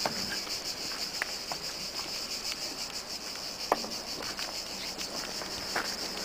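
Chorus of cicadas: a steady, high-pitched, rapidly pulsing buzz. A few short, sharp pops are scattered through it, the loudest a little past halfway.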